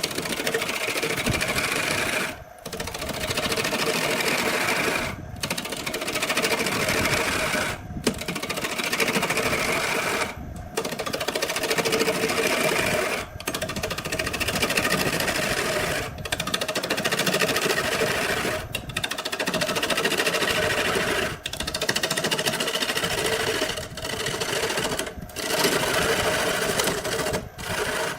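A small electric motor or power tool running steadily, broken by brief dropouts about every two and a half seconds.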